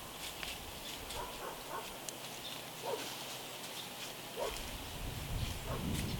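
Scattered short animal calls over a quiet outdoor background, with a low rumble swelling in about four and a half seconds in.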